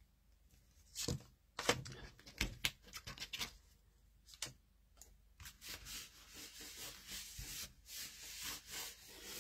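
Paper rustling and a few light taps as a layered patterned-paper panel is pressed onto a cardstock card base, then hands rubbing steadily across the paper from about halfway through to smooth it down.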